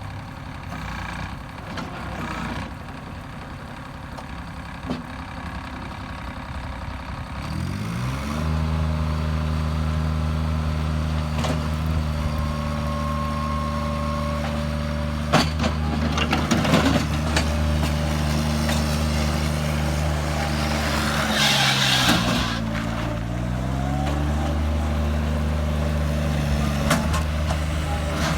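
Diesel engine of a Bobcat 463 mini skid steer running low, then throttled up about eight seconds in and held steady at high revs. Around two thirds of the way through the engine pitch sags under load and recovers, with a burst of hiss, and a few metallic clanks sound along the way.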